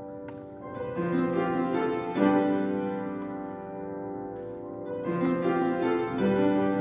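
Intro music led by piano, with chords changing every second or so.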